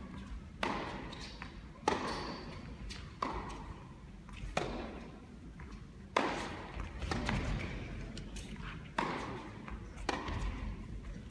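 Tennis ball struck back and forth in a rally: about seven sharp racket hits, roughly one every second and a half with a longer gap in the middle, each echoing through a large indoor hall.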